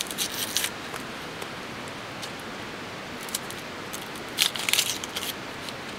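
A kitchen knife cutting and peeling a small onion held in the hand, in short crisp scraping strokes, once at the start and again about four and a half seconds in. The knife is not very sharp, which makes the cutting hard going. A steady hiss runs underneath.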